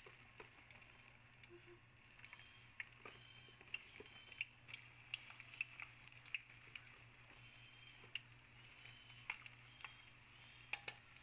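Food deep-frying in a pan of hot oil: faint steady sizzling with many small scattered pops and crackles.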